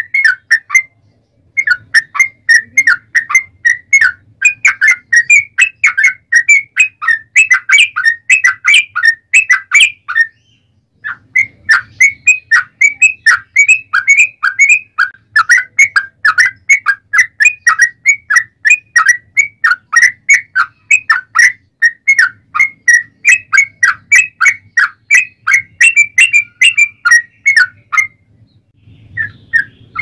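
Yellow-vented bulbul (trucukan) singing a long, fast run of short chirping notes, several a second, in the agitated 'fighting' style. The song breaks off briefly about a second in, around ten seconds in and near the end.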